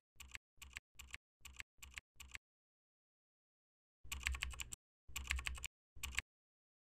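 Computer keyboard keystrokes: single key clicks about three a second, a pause of over a second, then three quick runs of typing as a word is typed out.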